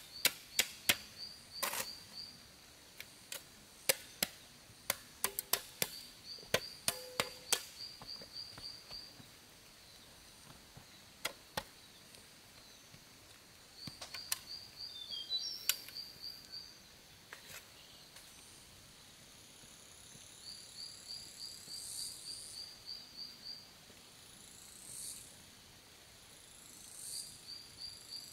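Hand-tool work on wood: a quick run of sharp knocks and chops over the first several seconds, then a few scattered strikes. Insects trill in short high bouts that come back every six seconds or so, and high rising chirps join in the second half.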